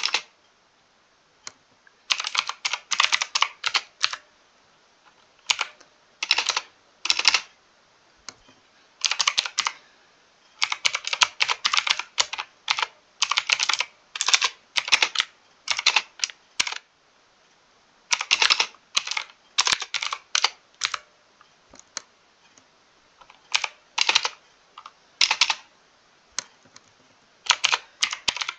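Mechanical keyboard typing: bursts of rapid key clicks separated by pauses of a second or two.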